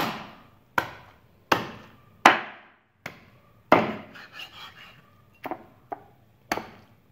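Meat cleaver chopping a raw chicken leg quarter on a round wooden chopping board: about nine sharp chops into the wood at uneven intervals.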